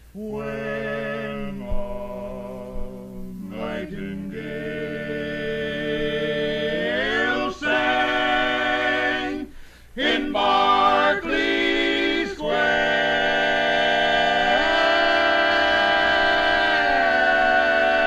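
Male barbershop quartet singing a cappella in close four-part harmony, sustained chords sliding together from one to the next. There is a brief break just before halfway, then a long chord held to the end.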